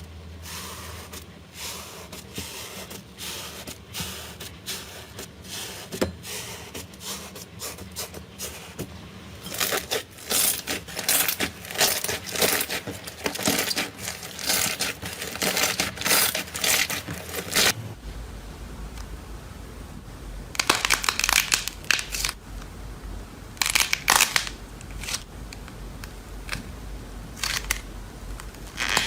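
Slime being squeezed, poked and stretched by hand, giving dense runs of sticky clicks and crackling pops that come in bunches. The low background hum changes about 18 seconds in.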